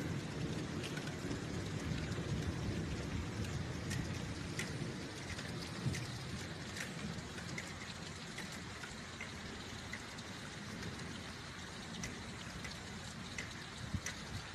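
Heavy rain pouring, with drops ticking on nearby surfaces, and a rolling thunder rumble that fades over the first few seconds.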